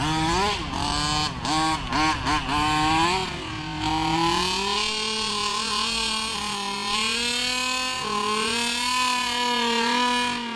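Tuned 26 cm³ two-stroke engine of a 1:5-scale Rovan 260 Sport RC buggy, running at high revs. It takes several quick throttle blips in the first three seconds, then holds a long, slowly wavering high-rev run.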